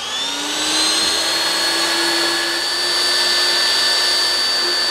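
Electric ground-screw driver's motor spinning up with a rising whine over about the first second, then running steadily as it turns a steel ground screw down into the soil.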